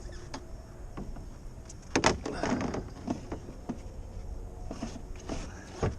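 Gear being handled and stowed in a canoe: a pair of sharp knocks about two seconds in, then rustling and clatter, a few lighter knocks, and another sharp knock near the end.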